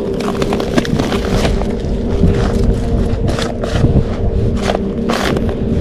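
Hands stirring and pouring dry flour in a crinkly aluminium foil tray and from a paper bag: a run of scraping and rustling strokes, with several sharper crinkles in the second half. A steady low hum runs underneath.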